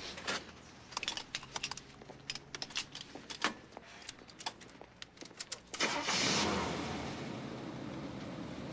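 Seatbelt and car keys clicking and jangling, then about six seconds in a car engine starts with a sudden loud burst and keeps running.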